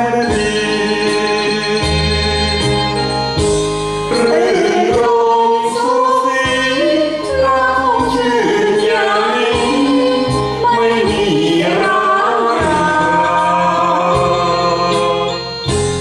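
A woman and a man singing a Thai song as a duet into microphones, over a recorded backing track with sustained bass notes.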